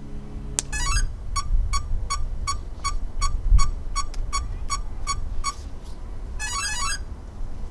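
Castle ESCs sounding their power-up tones through the Schübeler EDF motors as the flight battery is connected. After a sharp click comes a quick rising run of tones, then about a dozen short, even beeps at about three a second, then another rising run of tones: the ESC start-up and arming sequence. Wind rumbles on the microphone throughout.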